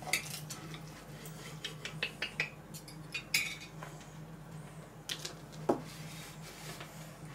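Knife and fork cutting through a piece of roasted meat on a ceramic plate: scattered clicks and short scrapes of cutlery against the plate.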